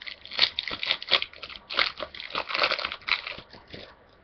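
Crinkly foil wrapper of a Yu-Gi-Oh! booster pack being torn open and crumpled by hand, as a run of irregular crackles.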